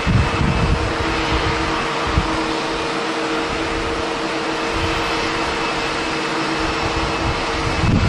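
Steady jet-engine hum from a Boeing 737-800 airliner on final approach, with two faint low steady tones in it. Strong wind buffets the microphone in the first second or so and again right at the end.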